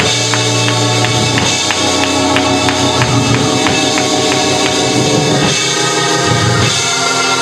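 Live church band music: held keyboard chords over a bass line, with light percussion hits about three a second that drop out a little past the middle.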